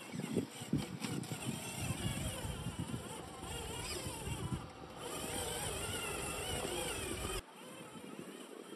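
Small electric RC rock crawler's motor and gears whining, the pitch wavering up and down with the throttle, over a crackle of tyres working across pebbles and shallow water. The sound cuts off abruptly near the end, leaving a fainter hiss.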